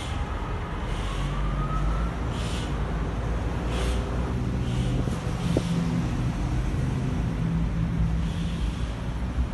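A motor vehicle engine running steadily, with several short higher-pitched sounds over it.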